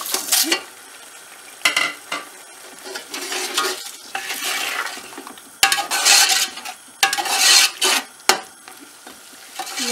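Whole spices (cumin seeds, cloves, black cardamom, cinnamon) sizzling as they go into the frying onion and ginger-garlic paste, while a slotted metal spoon stirs and scrapes the pot. The sizzle swells in several loud surges, the strongest in the second half, with a few sharp clicks.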